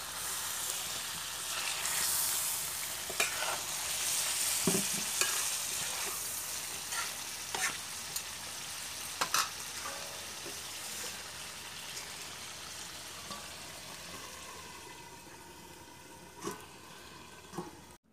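Chicken curry with potatoes sizzling in a metal pot over a wood fire. The sizzle is strongest in the first few seconds and fades slowly, with a few sharp clicks along the way.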